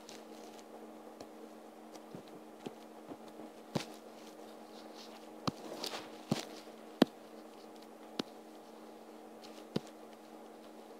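A steady low electrical hum with a handful of short, sharp clicks scattered through it; the loudest click comes about seven seconds in.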